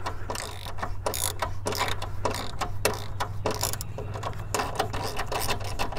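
Half-inch socket ratchet wrench clicking in short, uneven strokes, a few clicks a second, as it turns a thread-cutting bolt to cut threads in a hole in the sheet metal.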